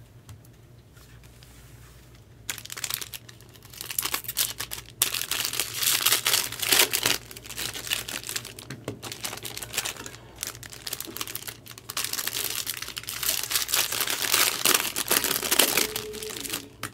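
Plastic wrapping crinkling and tearing as it is handled and pulled apart, starting about two and a half seconds in and going on in uneven bursts with short pauses.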